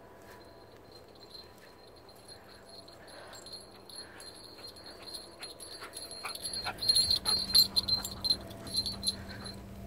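A dog coming up close, with soft whimpering and quick clicking and jingling sounds that get louder from about seven seconds in as it reaches the microphone.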